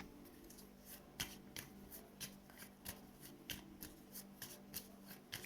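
Gypsy oracle cards being shuffled by hand: a quick, even run of soft card flicks and slaps, about three or four a second.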